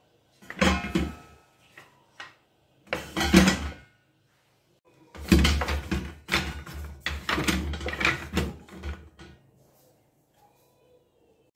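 Wooden spoons and spatulas clattering and knocking as they are dropped and shuffled into a perforated stainless-steel utensil holder, in two short bursts and then a longer spell of rattling.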